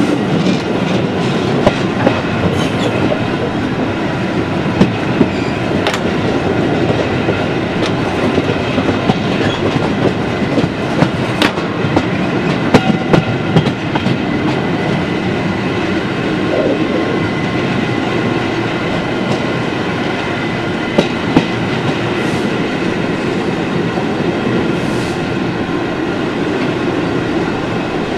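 Train running on the rails, heard from the carriage window: a steady rumble of wheels with sharp clicks and knocks as they cross rail joints and pointwork, most of them close together near the middle. A faint steady whine runs underneath.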